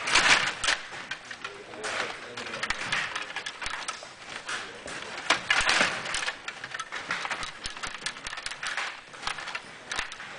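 Stiga Play Off table hockey game in play: rapid, irregular clicking and clattering as the control rods are pushed and spun and the plastic players strike the puck and the boards.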